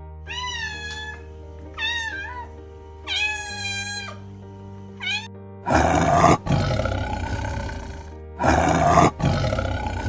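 Sea otter squealing four times in high, bending calls, then a tiger roaring twice, each roar two to three seconds long, over steady background music.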